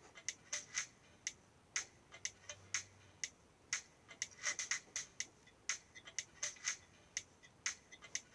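A series of sharp, light clicks and taps at an irregular pace, a few a second, some coming in quick pairs.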